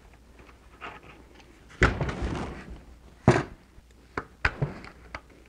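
Pliers working a small hose clamp onto a plastic tube on an intake manifold: a few sharp clicks and knocks, the loudest about two seconds in with a short rush of noise after it and another about a second and a half later, then lighter clicks.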